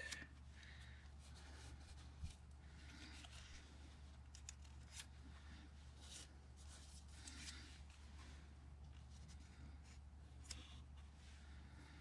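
Faint rustling and light taps of paper cutouts being handled and shifted on a book page, a few soft scattered touches over a low steady hum.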